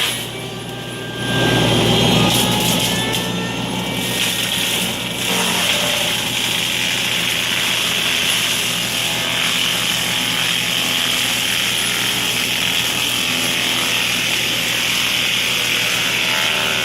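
8-tonne excavator with a fixed-hammer forestry mulcher head running, its engine and spinning hammer rotor giving a loud, steady drone with a hiss on top. It dips briefly at first and picks up again about a second and a half in.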